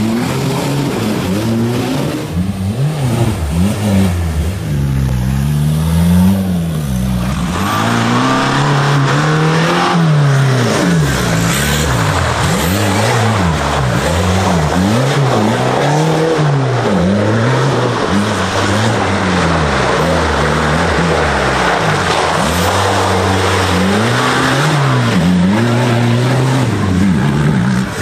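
A tuned 1.9 TDI turbodiesel engine in an off-road 4x4 revving up and down again and again under hard throttle. A steady rushing noise joins it about eight seconds in.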